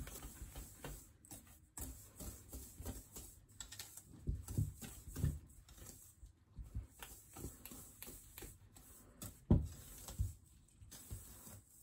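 Wire whisk and gloved hands stirring a damp, powdery bath bomb mixture in a stainless steel bowl: soft, irregular scraping strokes with light knocks.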